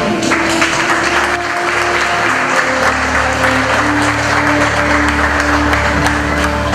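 Congregation applauding, a dense steady clapping, over music with held notes that change pitch in steps and a steady bass underneath.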